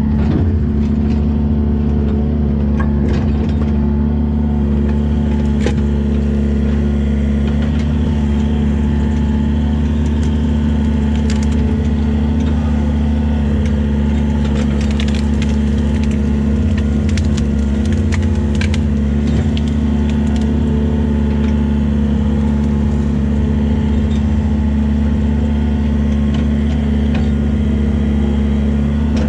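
Mini excavator's diesel engine running steadily at working revs, with repeated sharp cracks and snaps of branches as the grapple crushes and piles brush.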